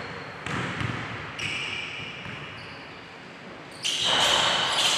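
Basketball bouncing on a gym floor, with thin high sneaker squeaks. Near the end a sudden loud burst of noise and voices as a shot goes up.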